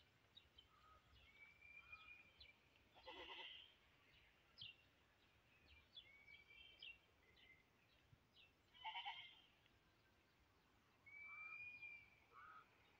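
Faint, distant bleating of livestock, two calls about three and nine seconds in, with thin high chirps scattered between them against a quiet background.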